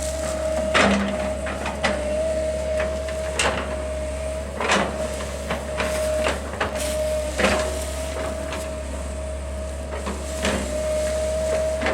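A heavy machine's engine running steadily while wood cracks and snaps in many sharp breaks, as limbs and brush are broken up.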